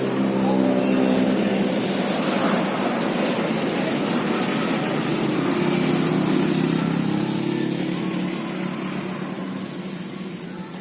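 A car engine running steadily, its level easing off over the last couple of seconds.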